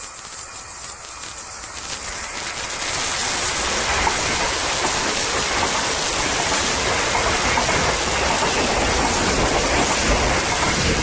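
A loud, steady rushing noise with no tone in it, swelling over the first three seconds and then holding level.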